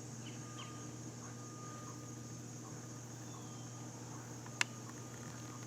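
Steady low background hum with a few faint short chirps, broken by a single sharp click a little past halfway.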